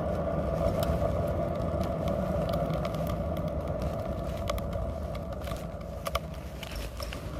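Kick scooter's wheels rolling over asphalt: a steady rumbling hum with scattered light clicks and rattles, growing a little quieter in the second half.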